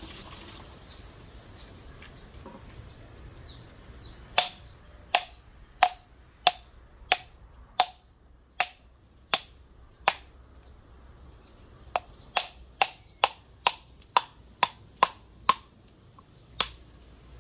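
A series of about twenty sharp chopping blows, each with a brief ring. They come at a steady stroke about every three-quarters of a second, then after a short pause a quicker run of about three a second.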